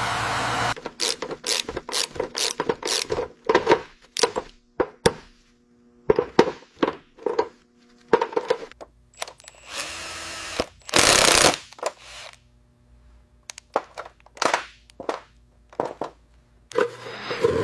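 A rapid, irregular series of sharp knocks and clicks from hand work on hard parts, some ringing briefly, with two short hissing bursts about ten and eleven seconds in.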